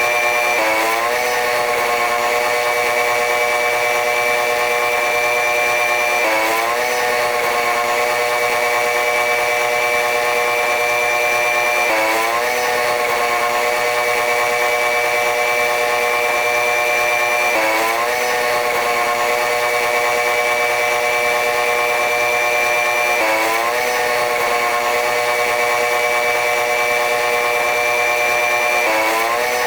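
Running-train noise: a steady, high-pitched mechanical drone of several tones. About every five and a half seconds the tones dip and climb back in an even, repeating cycle.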